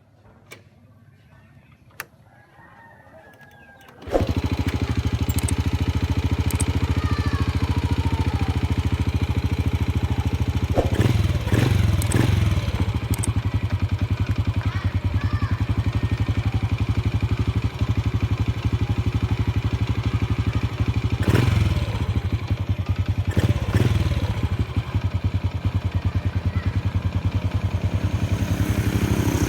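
Honda Wave R100 motorcycle's single-cylinder four-stroke engine catching about four seconds in, after a few faint clicks, then running steadily at idle. A few brief sharp knocks sound over the running engine.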